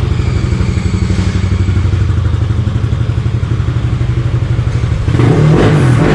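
Yamaha NMAX scooter's bored-up 210cc single-cylinder engine idling with an even beat. About five seconds in it is revved with a few throttle blips, testing the freshly installed JVT CVT pulley set.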